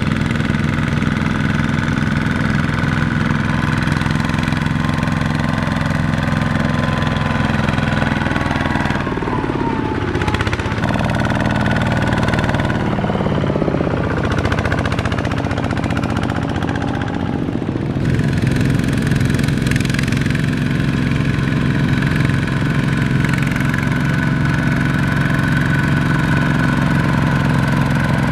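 Tractor's diesel engine running steadily under load, its note shifting and wavering for several seconds in the middle before settling back to an even hum.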